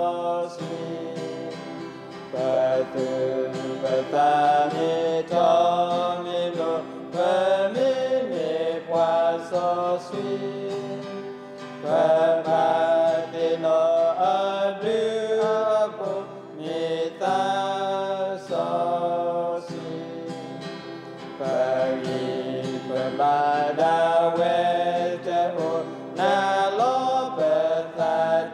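Men's voices singing a hymn in Karen, in long sung phrases, with a steady instrumental accompaniment underneath.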